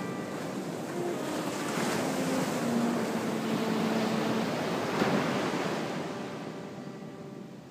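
Viola bowed in a slow improvisation, a few long low notes that die away near the end, over the steady wash of breaking surf.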